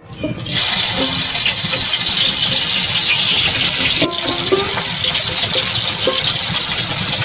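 Hot oil in an iron kadhai sizzling steadily as ingredients are dropped in, starting suddenly about half a second in.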